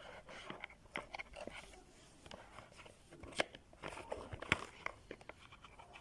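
Irregular light clicks, knocks and scraping of small hard parts being handled, with two louder knocks about three and a half and four and a half seconds in.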